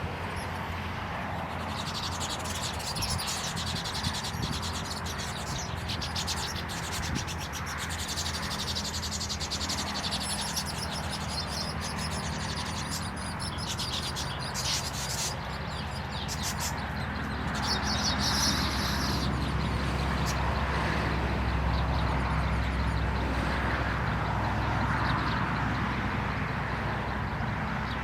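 Small birds chirping in rapid, busy twitters that die away about two-thirds of the way through, over a steady low rumble.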